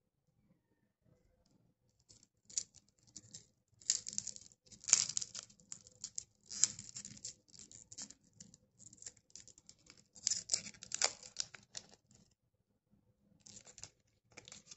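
Lollipop wrappers crinkling and tearing as hands twist and peel them off, in irregular bursts of crackly rustling starting about two seconds in, with a short pause near the end.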